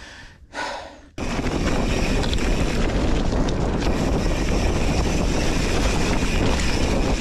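Mountain bike riding noise: wind rushing over the camera's microphone along with the rolling bike, starting abruptly about a second in and then steady.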